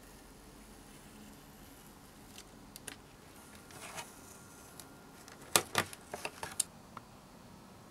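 Hands handling a thin clear-plastic RC truck body shell painted red, a Tamiya JB23 Suzuki Jimny, and its peel-off film. A few light clicks and a short rustle come first, then a quick cluster of sharp plastic clicks and crinkles about two-thirds of the way in.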